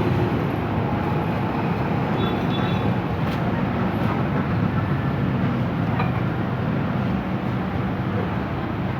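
Bajaj CT100's single-cylinder four-stroke motorcycle engine running steadily, freshly overhauled and reassembled.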